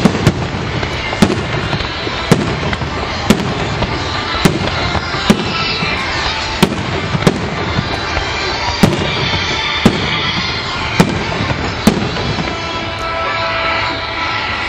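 Aerial firework shells bursting: about a dozen sharp bangs, roughly one a second, over a steady background noise from the display. The bangs stop about twelve seconds in.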